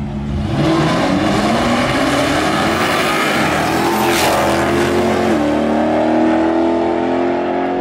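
Cars launching in a street race and accelerating hard, engine pitch climbing. About five seconds in there is an upshift and the pitch climbs again. A brief sharp noise comes about four seconds in.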